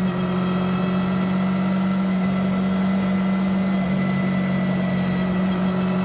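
Engine of a 1986 Pulse Litestar running steadily at cruising speed, heard from inside the cabin, an even drone that doesn't rise or fall.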